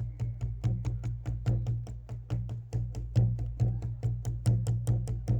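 Wooden percussion played as a sound effect: fast, sharp wooden clicks at about nine strikes a second, varying a little in loudness, over a steady low hum.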